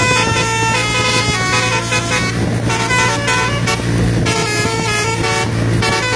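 Multi-tone 'telolet' musical bus horn playing a quick melody of stepping notes over a steady low hum.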